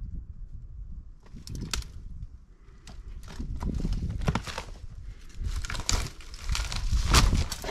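Footsteps crunching irregularly over dry scrub and rubble of broken roof tiles and brick, with a low rumble of wind on the microphone.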